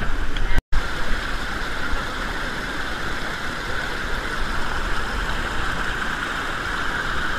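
Steady rush of river rapids, an even, unbroken noise of fast water over rocks, with a brief dropout to silence just under a second in.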